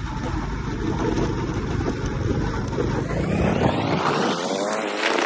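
A motor vehicle's engine running, then revving up with a rising pitch from about three seconds in.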